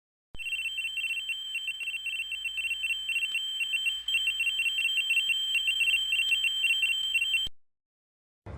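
Synthesized sci-fi sound effect: a high-pitched electronic tone with a rapid trill on top, starting abruptly, running for about seven seconds and cutting off suddenly.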